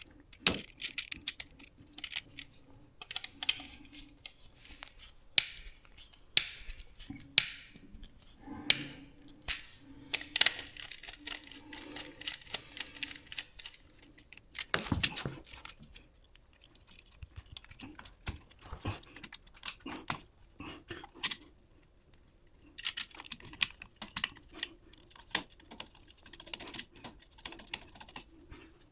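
Irregular small clicks, ticks and scrapes of hand work on a wall power socket: a screwdriver turning the socket's screws and plastic parts being handled.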